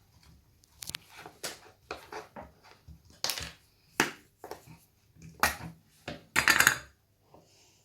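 Hands squishing and handling homemade slime with Orbeez mixed in, giving irregular short squelches, clicks and taps.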